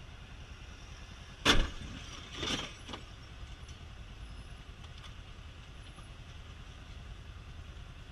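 A sharp, loud bang about a second and a half in, then a second, rougher knock a second later. A steady low rumble of idling traffic runs underneath.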